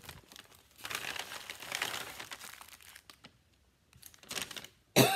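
Clear plastic packaging bags crinkling and rustling as they are handled, in two bouts with a short pause between. A sudden louder burst comes at the very end.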